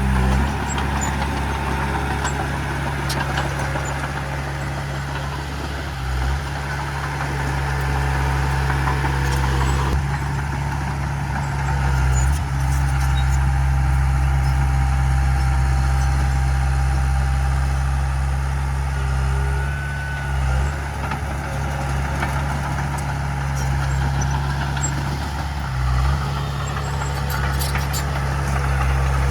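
Heavy diesel engine of earthmoving machinery running steadily at a low pitch, with a few brief changes in its note.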